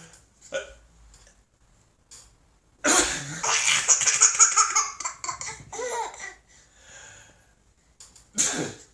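Laughter in bursts: a short burst near the start, a long loud fit of laughter from about three seconds in, a shorter burst near the middle and another loud burst at the end.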